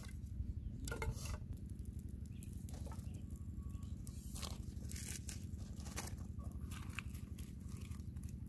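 Dry sticks of a freshly lit small campfire catching, with scattered crackles and snaps over a steady low wind rumble on the microphone.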